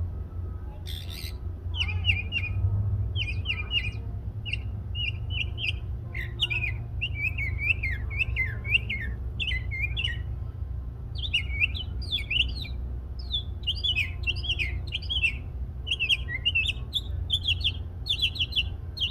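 A songbird singing a long, varied song of quick chirps and short warbled phrases with barely a pause, over a steady low rumble.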